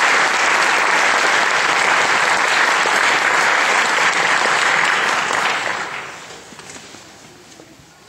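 Audience applauding, steady at first, then dying away over the last two to three seconds.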